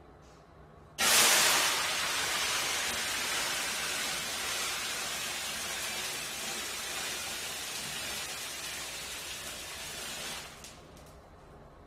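A grease fire in a frying pan flaring up: a loud rushing hiss starts suddenly about a second in, fades slowly and stops near the end.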